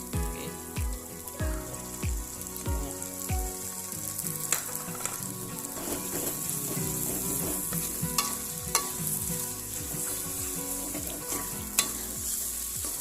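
Chilli paste sizzling as it is stir-fried in hot oil in a pan, with a spatula scraping and knocking against the pan now and then.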